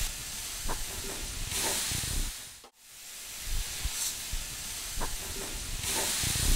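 Oil sizzling on a hot tawa under bread slices topped with a tomato-puree and onion mix as they are turned over with a spatula. The sizzle swells twice, with a few light scrapes and taps of the spatula on the pan.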